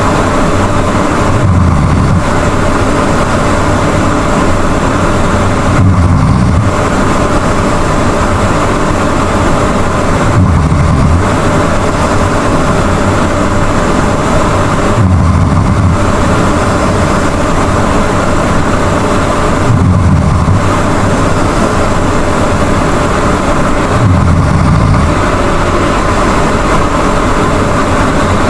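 Loud snoring from a sleeping person: one low snore about every four and a half seconds, six in all, over a steady background hiss.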